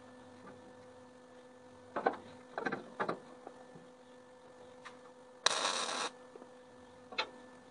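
A few knocks as a steel stack is set in place, then a short MIG tack weld crackling for about half a second, about five and a half seconds in.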